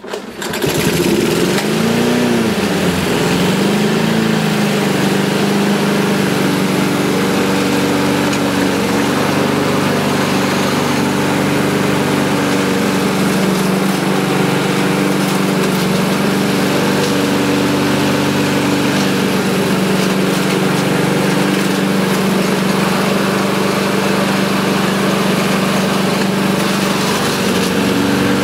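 Mountfield self-propelled petrol lawn mower engine pull-started: it catches at once, rises and falls in speed for the first few seconds, then settles to a steady run.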